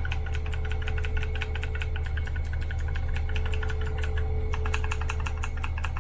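Fast typing on a Magic-Refiner MK11 Bluetooth mechanical keyboard: a dense, continuous run of key clicks. A steady low hum runs underneath.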